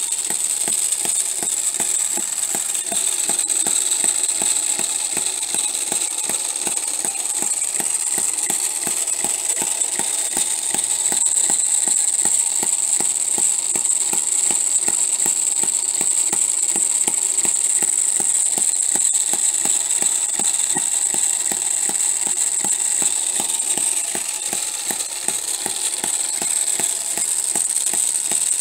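Homemade miniature four-stroke hit-and-miss engine running steadily at about 1500 rpm, firing about 160 times a minute and coasting about eight revolutions between power strokes. Its poor-quality gears make a lot of noise.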